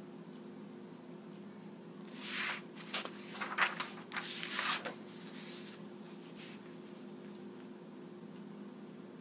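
Paper sheets rustling and sliding on a tabletop as they are handled, in a run of short bursts lasting about three seconds, starting about two seconds in. A steady low hum continues underneath.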